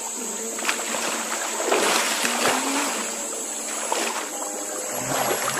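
River water splashing and sloshing irregularly, with a steady high-pitched whine underneath.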